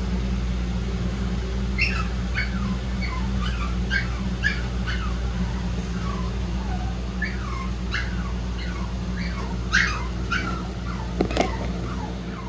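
Shih-poo puppies whimpering and squeaking: many short, high cries that fall in pitch, scattered throughout, a few louder ones near the end, over a steady low hum.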